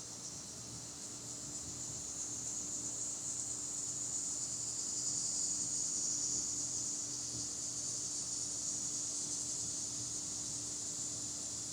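Summer insect chorus: a steady, high buzzing drone that swells to its loudest about halfway through and eases a little toward the end. A faint low hum runs underneath.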